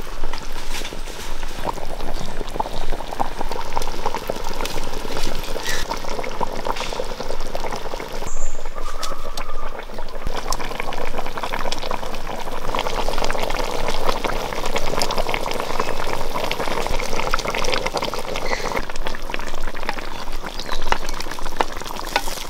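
Kerala fish curry with a whole pomfret boiling in a clay pot: the thick tamarind gravy bubbles steadily with many small pops.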